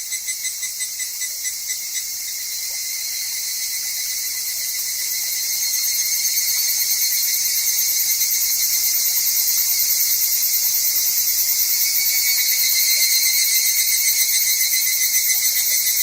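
Higurashi (evening cicadas, Tanna japonensis) calling in fast, pulsing trills, several overlapping, growing louder over the first few seconds and then holding steady, over a faint murmur of a stream.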